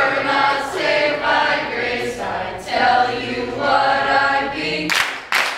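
A small mixed group of young men and women singing together a cappella, holding sung notes in unison, with two short hissing sounds about five seconds in.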